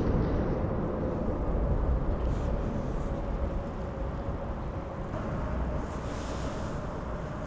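Low, steady rumble of vehicle traffic, with a faint steady hum over it partway through.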